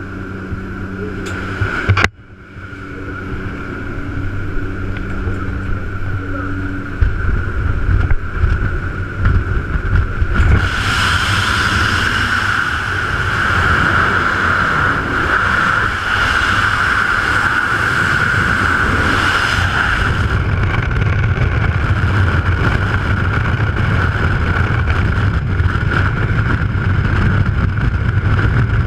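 Aircraft engine drone at the open jump door for the first few seconds, broken by a sharp click about two seconds in. The drone then fades, and loud freefall wind rushes and buffets over the camera microphone, swelling and staying heavy to the end.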